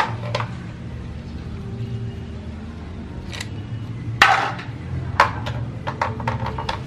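Plastic clicks and clatters from a toy fishing rod and rubber toy animals knocking about a plastic basin of water: a few sharp knocks, one louder, longer clatter about four seconds in, and a quick run of clicks near the end.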